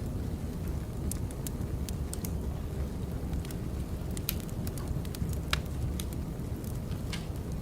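Firewood burning, crackling with irregular sharp pops over a steady low rumble.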